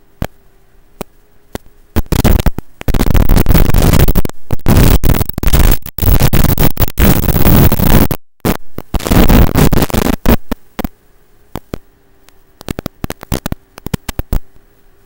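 Loud hissing static from an analog FPV video receiver's audio channel, with sharp crackling clicks. The hiss comes in at about two seconds and runs until about ten seconds, dropping out briefly near eight; before and after it there are only scattered clicks over a faint hum.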